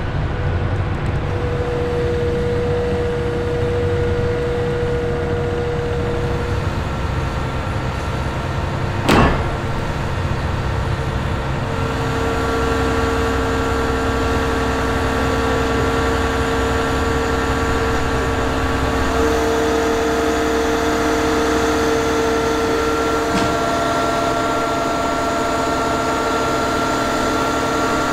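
Self-propelled modular transporter's diesel power pack and hydraulics running under load, a steady engine rumble with several steady whining tones whose pitch shifts a few times as the transporter creeps the 310-tonne transformer over timber cribbing. A single sharp knock about 9 seconds in.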